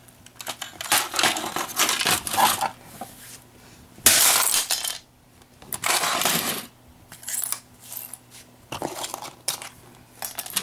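Plastic shell of a VHS head-cleaner cassette being broken apart by hand: a run of irregular cracks, crunches and clatters of hard plastic pieces, the loudest crunch about four seconds in.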